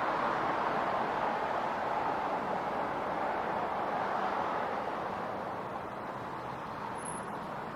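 Road traffic noise: a steady wash of passing-vehicle sound that eases off gradually over the last few seconds.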